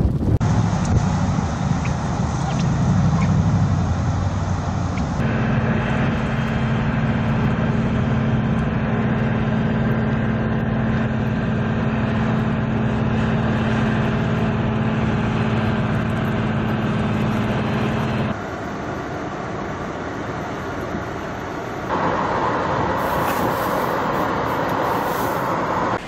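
A large rotary snowblower truck's engine running with a steady low hum over the noise of blowing snow, for most of the middle of the stretch. Before and after it, blizzard wind noise, which turns into a hissing rush near the end.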